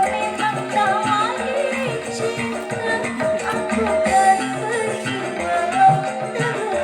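Recorded music with a wavering vocal-like melody over drums and rattling percussion, played back through a miniature sound system driven by a TPA3116 class D amplifier.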